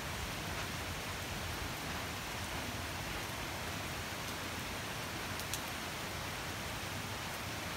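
Steady rain falling on dense leafy trees, an even hiss with one sharper drop about five and a half seconds in.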